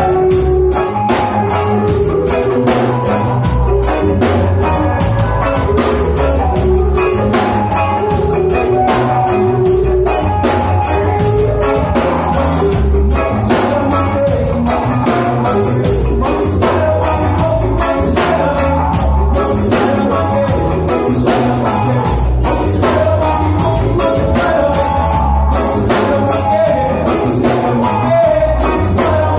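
Rock band playing live: electric guitars and bass guitar over a steady drum-kit beat.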